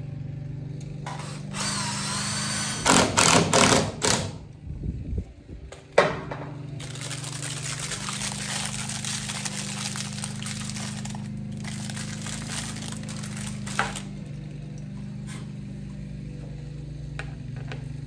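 Power drill driving screws into timber through an OSB packing pad: a short run with a rising whine, a few loud bursts, a sharp click, then one long run of about seven seconds. A lawn mower engine hums steadily in the background.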